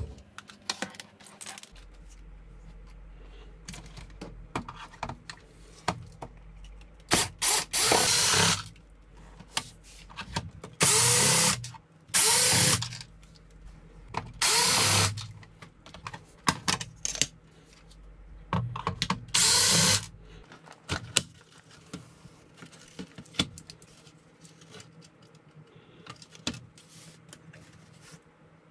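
Cordless drill-driver backing out the screws of a cassette boombox's plastic back case: about seven short runs of the motor, each spinning up and winding down, between about seven and twenty seconds in. Clicks and handling knocks come between the runs.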